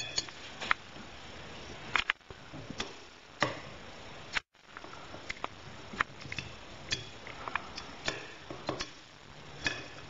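Hand tubing cutter being turned and tightened around copper tubing: irregular sharp clicks and ticks, about one a second, with a brief break about four and a half seconds in.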